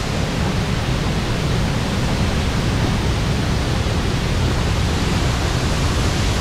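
Large waterfall plunging from a cliff into the sea close by: a steady, loud rush of falling water.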